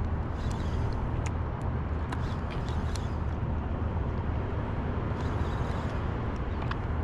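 Steady low rumble of wind and sea water around a surfboard on open water, with scattered small splashes and drips.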